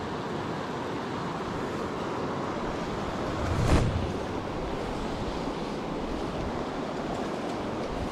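Steady rush of a shallow, fast river running over stones. A short, louder whoosh comes a little before halfway through.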